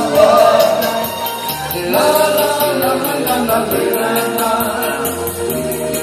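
Song with group harmony vocals held and sliding between lines over band accompaniment, with a light, steady beat ticking about four times a second.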